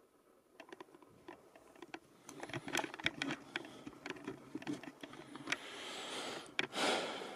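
Footsteps and scuffing on a hard floor: a run of irregular clicks and taps that grows denser about two seconds in, then a louder rustling scrape near the end.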